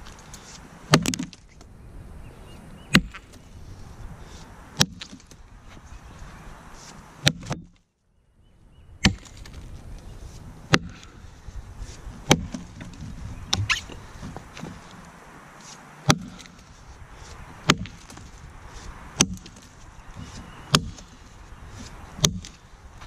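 Vintage Kelly True Temper Wood Slasher boy's axe, a Dayton pattern head on a 28-inch handle, chopping into a felled log in steady single blows about every one and a half to two seconds, each a sharp thunk into the wood. The sound drops out briefly near the middle.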